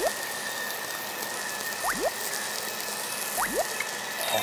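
Edited-in cartoon 'bloop' sound effect: three pairs of quick blips, each rising in pitch like a water drop, less than two seconds apart, over a faint steady high tone.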